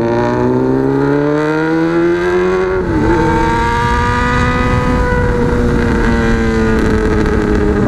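Honda CB600F Hornet's inline-four engine through a megaphone exhaust, accelerating hard: the revs climb for about three seconds, dip briefly at a gear change, then hold high and steady, easing slightly near the end.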